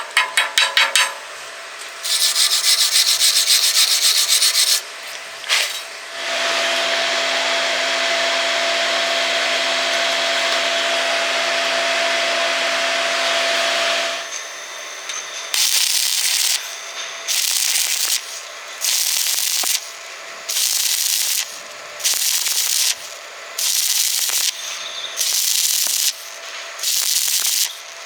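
Metalworking tool noise. A quick run of clicks comes first, then a pulsing hiss, then a steady hiss with a faint hum for about eight seconds. The rest is a series of about eight separate scraping or hissing strokes, each roughly a second long, with short gaps between them.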